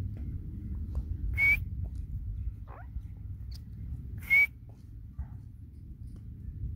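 Grey francolin giving two short, loud, shrill calls about three seconds apart.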